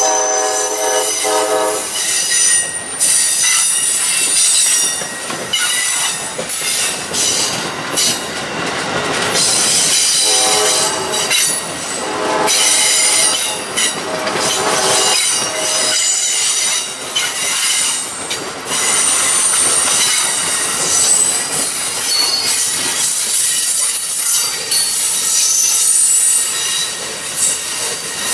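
A train going by with its wheels squealing throughout, its horn sounding near the start and again about ten seconds in.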